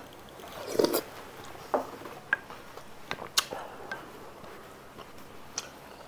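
Wooden spoon scooping soupy rice in a ceramic bowl, giving a few short sharp clicks and scrapes, with soft close mouth sounds of eating.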